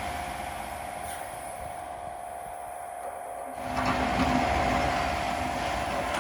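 Hitachi ZX135US excavator running, with a steady whine throughout; the machine grows louder and fuller a little past halfway, as if put under load.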